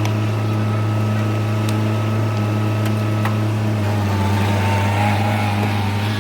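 Diesel engine of heavy land-clearing equipment (skid steer or excavator) running steadily, with a faint higher whine coming in about four seconds in.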